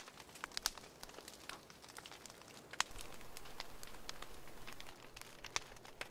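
Small wood fire crackling, with scattered irregular snaps and pops and one sharper snap about three seconds in.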